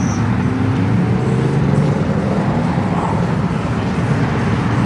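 Deep, loud rumble of a straight-piped car engine running nearby, its pitch drifting slowly up and down.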